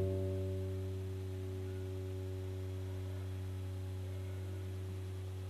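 A single low musical note held as a steady drone, starting sharply at the outset and easing slightly in the first second before sustaining evenly.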